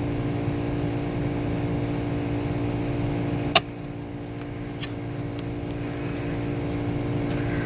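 A steady machine hum, made of several even tones, with one sharp click about three and a half seconds in and a fainter one a second later.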